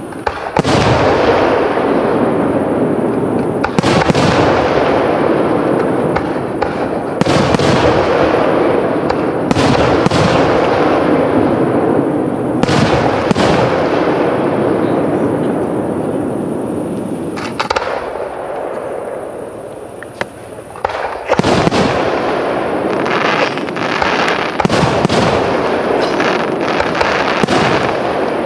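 Aerial firework shells bursting one after another: sharp bangs every one to three seconds over a continuous rolling echo and crackle. There is a brief lull about two-thirds of the way through, then a quicker run of bangs.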